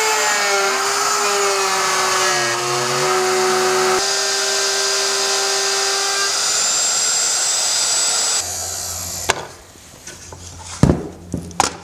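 Porter-Cable router running with a half-inch bit and cutting a dado in board, its pitch sagging slightly under load during the cut. It is switched off about eight seconds in and winds down, followed by a few sharp knocks as the router and base are lifted off the track.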